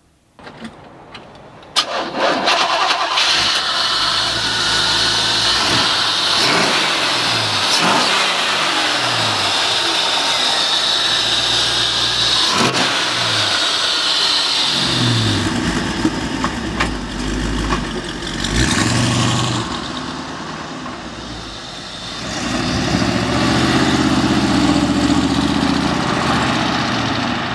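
305 Tuned Port Injection V8 in a 1957 Chevrolet Bel Air starting about two seconds in, then running with several revs. Near the end the car pulls away.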